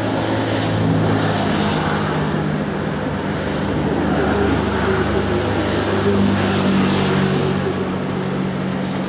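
A motor running steadily nearby, a low even drone with several overtones, shifting slightly in pitch a couple of times.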